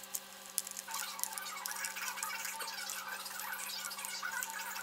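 Hand scrubbing and sanding of a car wheel with an abrasive pad, a busy, irregular scratchy rubbing that starts about a second in.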